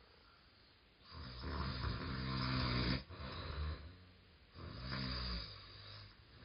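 Snoring in two long breaths: a snore lasting about two seconds that starts a second in and cuts off sharply, then after a pause a shorter one near the five-second mark.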